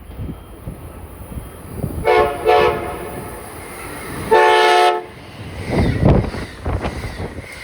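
Amtrak cab car's air horn sounding a chord in two short blasts, then a longer, louder one. A low rumble from the train follows.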